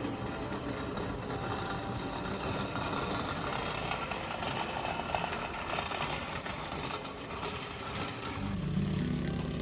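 An engine running, with a deeper, steady engine note coming in near the end.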